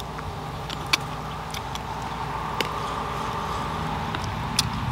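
A steady low engine-like hum with a few sharp clicks, the loudest about a second in and another near the end.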